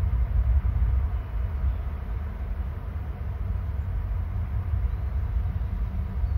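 Steady, uneven low rumble of wind buffeting the microphone of an outdoor camera.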